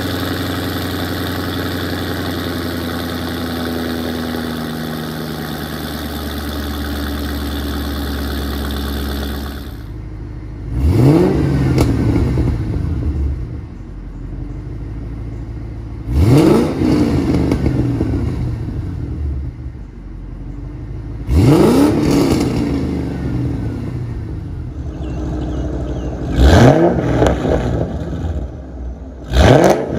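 A Ford Mustang GT's V8 through a loud aftermarket axle-back exhaust, fed by long-tube headers and an off-road H-pipe. It idles for about ten seconds, then is revved five times in short blips, each rising and falling back to idle, the last two close together.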